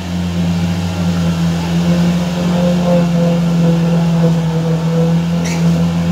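Suzuki Jimny 4x4 engine running at steady, held revs as the vehicle pushes through deep muddy water, a constant low drone. A brief high-pitched sound cuts in near the end.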